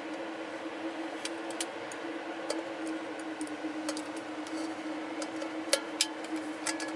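Light metallic clicks and ticks as a clip-on handle is worked onto a camping pot, with two sharper clicks near the end, over a steady hum.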